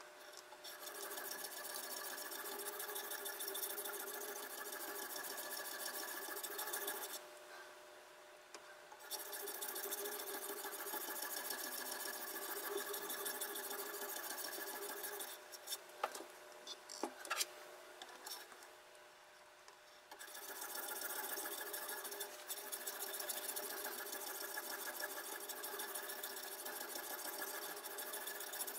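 Sharpening stone on a guided-rod knife sharpener worked back and forth along a clamped chef's knife edge: a steady scraping rasp in three long spells. There are short pauses between the spells, and a few sharp clicks in the second pause.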